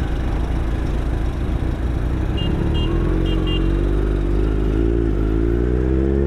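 Kawasaki Z900 inline-four with an SC-Project full-system exhaust, heard from the saddle while riding. Its note rises steadily in pitch through the second half as the bike accelerates.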